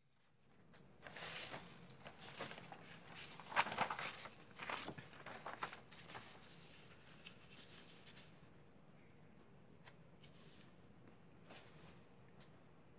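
Sheets of paper rustling and crinkling as they are handled and slid over the drawing board, in a run of bursts that is loudest about four seconds in and dies away after about six seconds. A few faint ticks follow.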